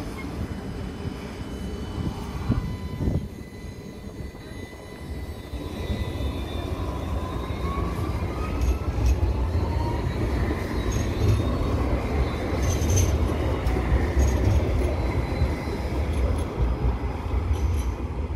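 Alstom Citadis light rail tram passing close by: low rumble of steel wheels on the rails that builds and stays loud, with a faint rising whine partway through.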